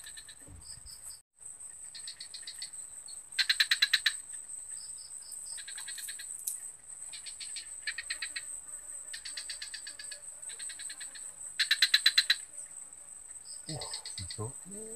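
A chorus of frogs and insects: loud trains of rapid clicking pulses, each about a second long, repeating every few seconds, over a continuous high-pitched insect drone.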